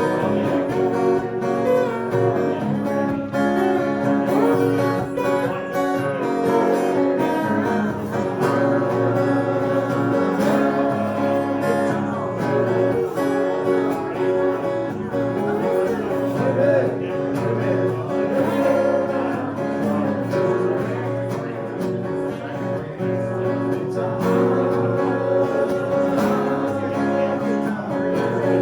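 Country-style acoustic guitar music, strummed, playing without a break.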